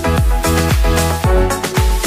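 Background electronic dance music with a steady kick drum, about two beats a second, under sustained synth chords.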